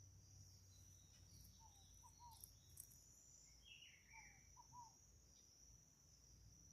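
Faint nature ambience: a continuous high-pitched insect trill, with a bird twice giving a short phrase of low whistled notes a couple of seconds apart and a brief higher chirp between them.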